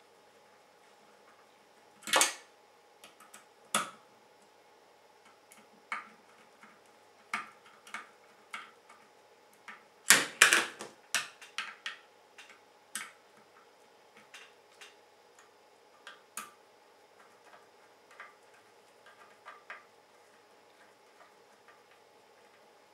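Scattered clicks and light metallic taps of small screws and a screwdriver as a full-cover water block is screwed onto a graphics card's circuit board, with louder clatters about two seconds in and around ten seconds in.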